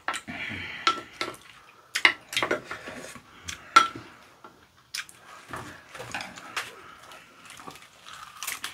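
Eating sounds: irregular clicks of a wooden spoon and chopsticks against a ceramic bowl and food containers, with lettuce leaves rustling as a raw squid wrap is folded, and a bite into the wrap near the end.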